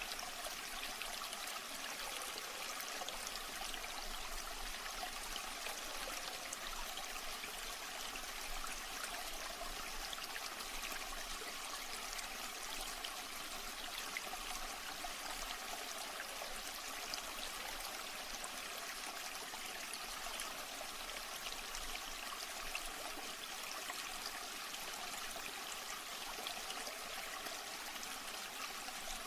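Water flowing steadily, a continuous babbling and trickling with no pauses.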